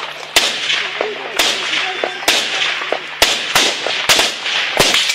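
Rifle fire in a firefight: about six single shots, irregularly spaced roughly a second apart, each a sharp crack with a brief echoing tail.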